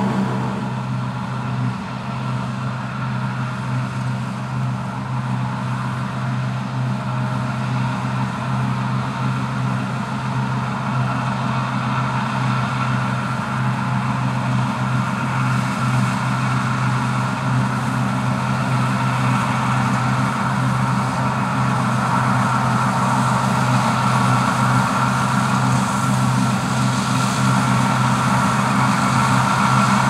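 New Holland CSX7070 combine harvester running steadily while cutting wheat: an even engine and machinery drone with a hiss over it, growing gradually louder as it comes closer.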